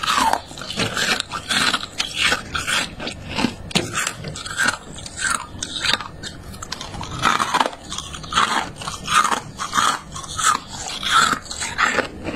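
Freezer frost being bitten and chewed: close-up crisp icy crunches in an irregular run, about two or three a second.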